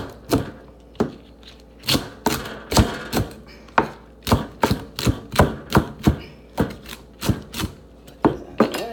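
Kitchen knife chopping leafy greens on a cutting board: a run of sharp, uneven knocks of the blade on the board, about two a second.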